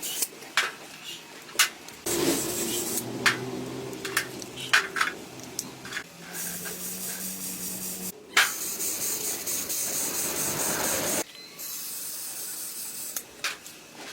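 Air-powered spray gun hissing in two long bursts, the first from about two seconds in, a brief break, then a second that cuts off suddenly near eleven seconds, over a low machine hum. Sharp clicks and knocks come before and after the spraying.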